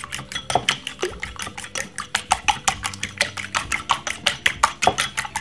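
Metal fork beating two raw eggs in a ceramic bowl, its tines clinking against the bowl in a quick, steady rhythm.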